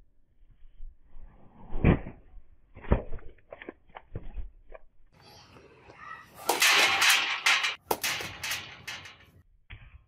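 Hand-forged sword being swung and test-cut: two sharp knocks, a few lighter ticks, then a loud run of swishing slashes with sharp strokes as the blade cuts through a hanging fish.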